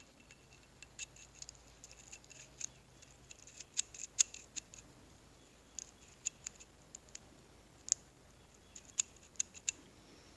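Light, sharp metallic clicks and ticks at irregular intervals: small transmission parts, the sprag clutches from a 4L60E and a TH350, being handled and fitted together on the workbench. The loudest clicks fall about four seconds in and near eight seconds in.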